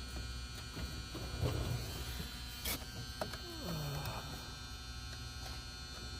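Steady electrical hum and buzz, with a few light clicks and handling knocks, the sharpest a little before three seconds in.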